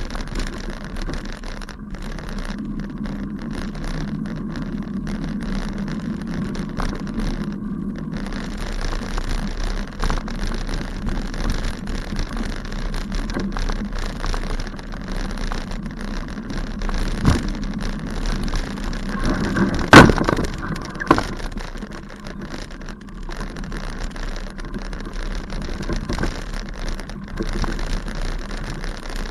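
A bicycle ridden over a rough grass path: a steady rustle and rattle from the tyres and frame, with a few sharp knocks, the loudest about two-thirds of the way through.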